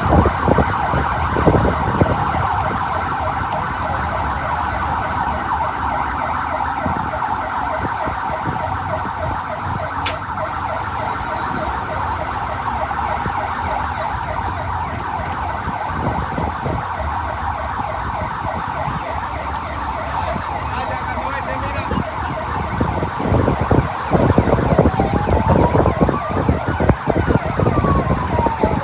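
An emergency-vehicle siren sounds continuously in a fast warbling yelp. Near the end it switches to a slow wail that rises and falls in pitch, over a low street and engine rumble.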